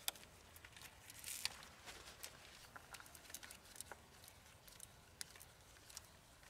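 Near silence with faint scattered clicks and a soft rustle: a gloved hand spinning a new oil filter onto a Kubota BX25's three-cylinder diesel engine and snugging it by hand.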